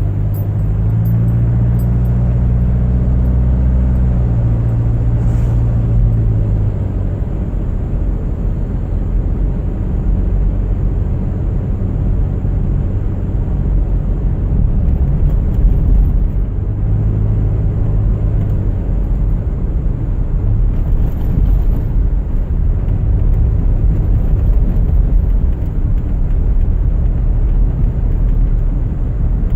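A car driving along a road: a steady low rumble of engine and road noise, with a low engine hum that swells for the first several seconds and again briefly a little over halfway through.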